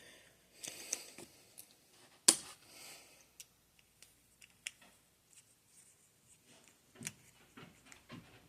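Scattered small clicks and taps of a screwdriver and plastic parts being handled while a radio-controlled car is taken apart, with one sharper click a little over two seconds in.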